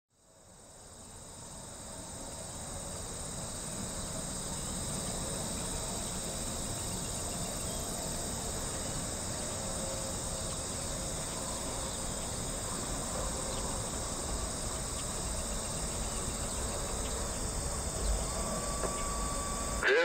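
Steady chorus of crickets, several high even trills layered together, over a low rumble. The sound fades in over the first two seconds, and a short steady tone sounds just before the end.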